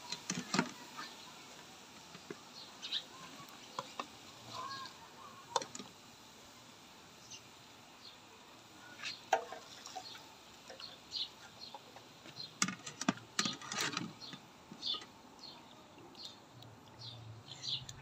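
Wire frying skimmer clinking and scraping against an aluminium wok as fried papads are scooped from hot oil: scattered sharp clicks, bunched a little past the middle. Short bird chirps come in between.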